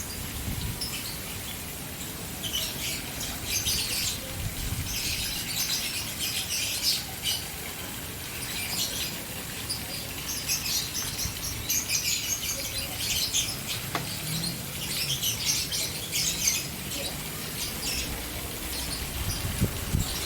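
A flock of caged birds chirping in rapid, high-pitched clusters that come and go, over the steady rush of fountain water.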